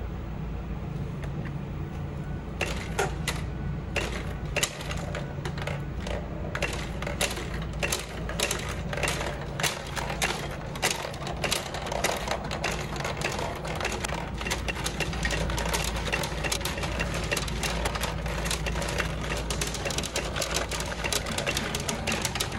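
Lupin the Third pachinko machine in play: steel balls fired in a rapid stream, clattering down through the pins. The clicks start about two and a half seconds in.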